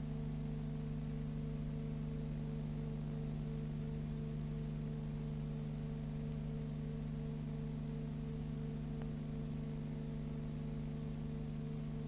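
Steady low electrical hum with hiss, and a fainter tone pulsing evenly about three times a second. There are no bird calls: this is the noise floor of a silent cine-film transfer.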